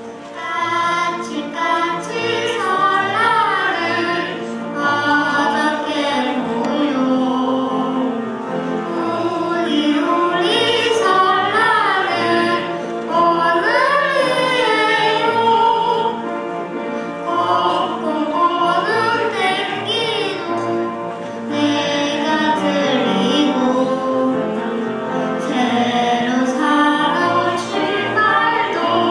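A girl and a woman singing a Korean Lunar New Year song, the melody wavering and sliding in pitch, over a steady instrumental accompaniment.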